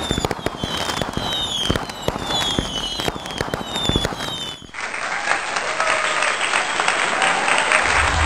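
Fast crackling pops mixed with short whistles that fall in pitch, about two a second, like firecrackers and whistling fireworks. Partway through this cuts to a crowd clapping and chattering, and music with a bass beat starts near the end.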